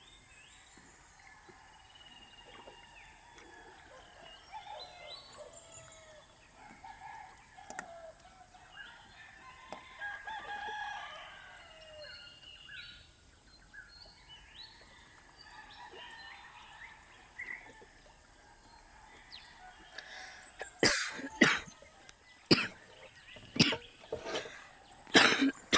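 Rooster crowing, with other birds calling around it. In the last five seconds, several loud, sharp knocks.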